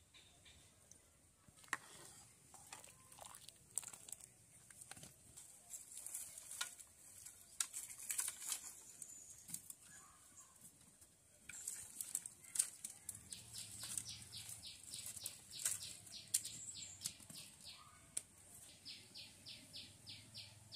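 Lentils boiling in an iron wok over a wood fire, with scattered clicks and crackles. In the second half a rapid run of short high notes, about four a second, comes twice, from a bird calling.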